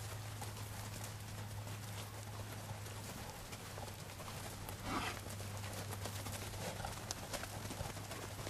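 Hoofsteps of several weaned beef calves walking across a packed dirt pen, a scatter of soft irregular steps. A brief louder noise comes about five seconds in.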